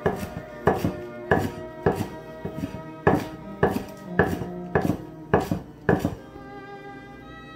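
Chinese cleaver chopping green onions on a wooden cutting board: about ten even knocks, roughly one every 0.6 seconds, stopping about six seconds in. Soft background music plays underneath.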